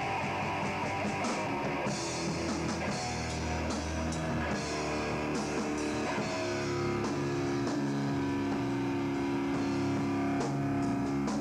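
Live rock band playing an instrumental passage: electric guitar over bass guitar and drum kit with cymbal hits. From about halfway through, long held notes ring out over the beat.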